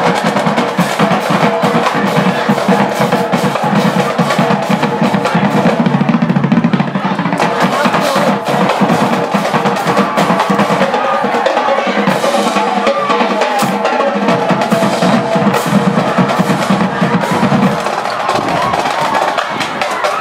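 College marching band drum line playing a fast, dense percussion feature: snare drums with rolls over bass drums, continuous throughout.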